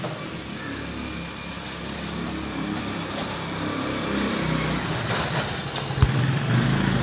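Small motorcycle engine running, growing louder over the last few seconds, with a single sharp knock about six seconds in.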